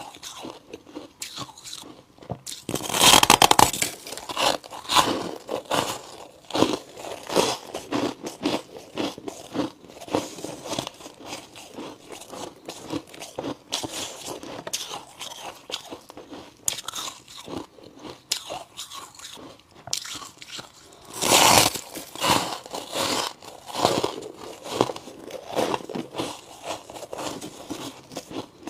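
A person biting into chunks of white humidifier ice and chewing them, with a run of crisp crunches. Two hard bites stand out, one about three seconds in and another about two-thirds of the way through, each followed by a steady string of chewing crunches.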